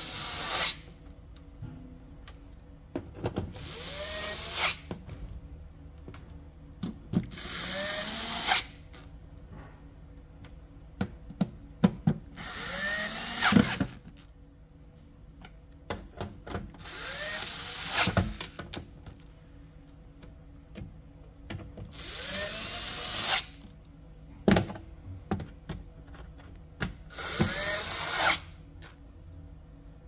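Cordless power drill/driver run in short bursts of about a second and a half, six times, about every four to five seconds, each spinning up in pitch as it starts. Sharp clicks and knocks come between the bursts.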